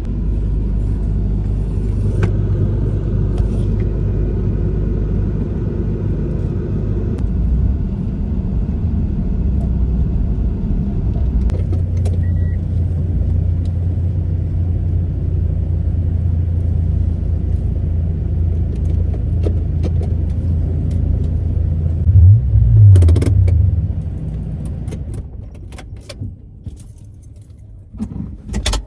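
Steady low rumble of a moving motor vehicle, with occasional light clicks. About 22 seconds in the engine swells louder for a couple of seconds, then the rumble falls away as the vehicle slows.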